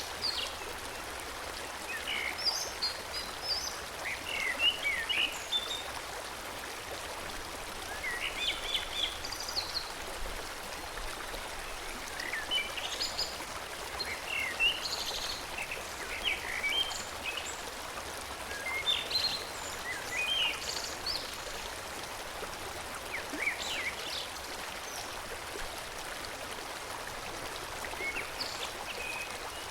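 A forest stream flows steadily, with birds singing short, chirping phrases over it every second or two. The birdsong thins out near the end.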